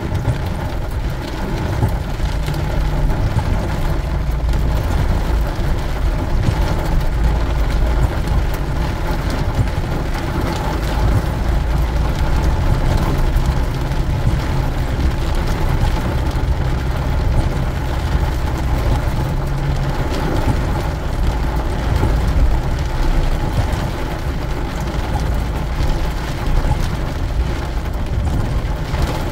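Steady low rumble of a 2018 Ford Transit 250 van's engine and tyres on a wet road, heard from inside the cabin while driving.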